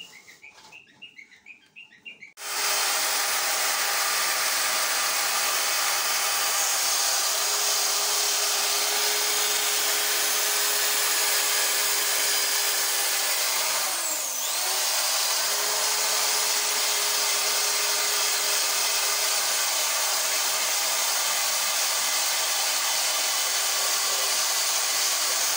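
Handheld electric drill fitted with a foam polishing pad, buffing polishing compound on a motorcycle's plastic headlight lens. The motor starts about two seconds in and runs steadily at high speed, dipping in speed briefly about halfway through, then picking up again.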